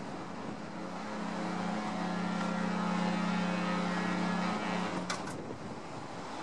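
Harbour sound as a large cruise ship pulls away from the quay: wind and moving water, with a steady low motor drone that swells for a few seconds in the middle. Two sharp clicks come near the end.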